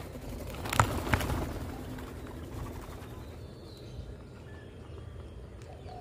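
Two sharp knocks about a third of a second apart, roughly a second in, over a steady outdoor background with a faint low hum.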